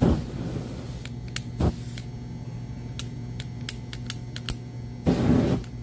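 Aerosol spray can hissing through a lighter flame in two short bursts, one at the start and one near the end, with a string of sharp clicks between them.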